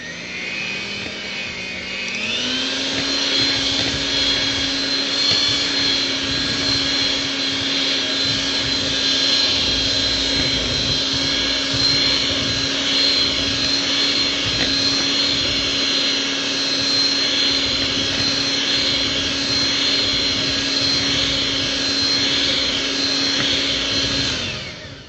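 Electric hand mixer running, its twin beaters whipping a thick yeast batter in a metal bowl. The motor whine steps up to a higher speed about two seconds in, holds steady, and winds down just before the end.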